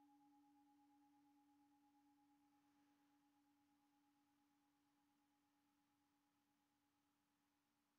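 A singing bowl's ringing dying away, very faint: two steady tones, one low and one higher, slowly fading with a slight wavering pulse.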